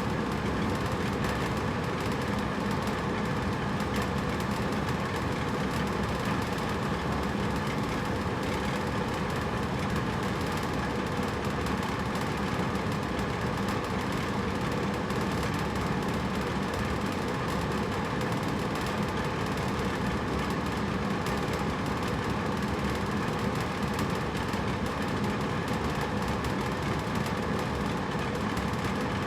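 Hotel room air conditioner running steadily: an even whoosh of air with a low, constant motor hum and faint steady tones.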